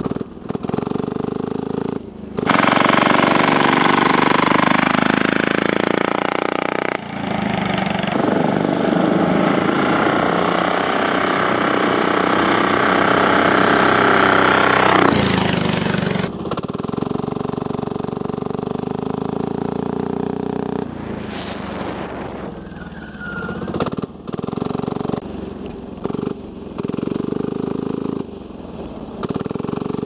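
Small diesel engine of a homebuilt go-kart running under load and winding out, its pitch rising and falling as it accelerates and lets off, loudest in the first half. The sound breaks off abruptly several times in the second half.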